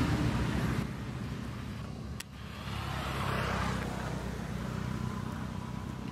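Passing road traffic: a vehicle's engine rumble fades away, then another swells and passes about three to four seconds in, with a single sharp click about two seconds in.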